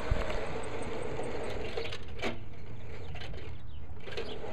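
Märklin Maxi gauge 1 model train running past, with the steady whir of its electric motor and gearing and its wheels on the rails. There is one sharp click about two seconds in.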